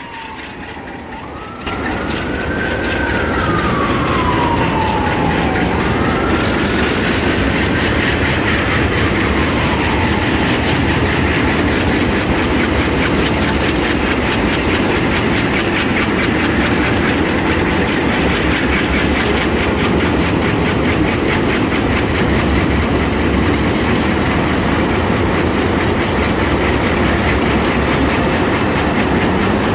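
Diesel locomotives pulling a freight train past close by, engines working, with wheels clattering on the rails. The sound jumps up about two seconds in. For the first several seconds a whine slides down in pitch, then rises again.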